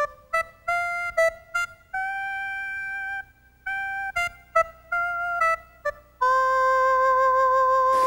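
Music: a short melody of clean, held notes in a few phrases, ending on one long sustained note.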